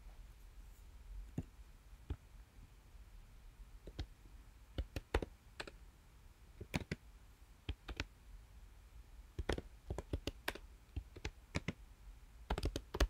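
Typing on a computer keyboard: irregular key clicks, some single and some in quick runs of several keystrokes, with short pauses between.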